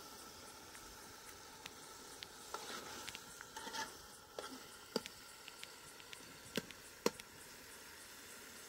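Cooking over a wood fire: a ladle stirring and scraping in a metal pot, then a few sharp clicks, over a faint steady sizzling hiss.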